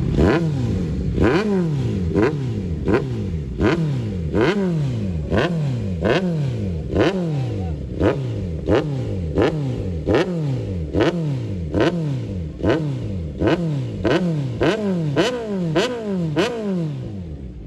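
Kawasaki Z900 inline-four engine through an AR aftermarket exhaust, blipped again and again at standstill: about once a second it revs up sharply and falls back, with a crack from the exhaust at each peak. The revs come slightly quicker near the end before it settles.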